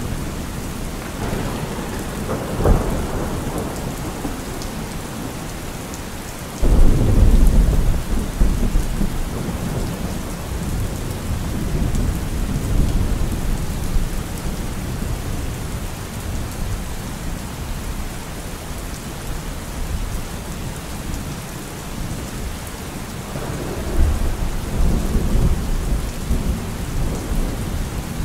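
Steady rain with rolling thunder: a rumble a few seconds in, a sudden loud thunderclap about seven seconds in that rolls away over several seconds, and another rumble near the end.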